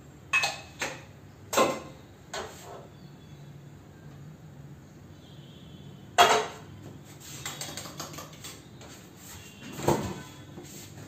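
Kitchen dishes and utensils knocking and clinking against each other and the counter: a string of separate knocks, the loudest about six seconds in, with a run of lighter clicks after it.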